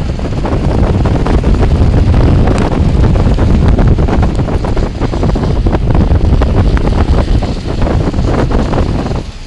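Heavy wind buffeting the microphone: a loud, rumbling rush that drops off abruptly at the very end.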